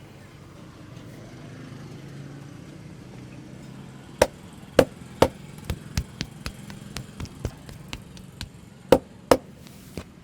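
Hands slapping and hacking on a person's back and shoulders in percussive massage strokes: a run of sharp smacks starting about four seconds in, three loud ones, then a quicker string of lighter ones, and two more loud smacks near the end.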